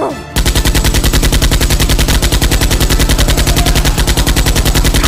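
Rapid automatic gunfire, a machine-gun sound effect firing about twelve shots a second in one unbroken burst, starting about a third of a second in.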